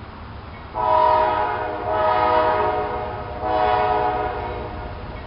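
Horn of a Norfolk Southern GE Dash 9 locomotive sounding a long multi-note chord from about a second in, then a second blast about three and a half seconds in, over the low rumble of the approaching train.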